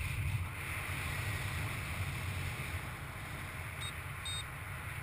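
Steady rush of airflow buffeting the microphone of a paraglider in flight. A little under four seconds in, the flight variometer gives two short high beeps, the second a little longer.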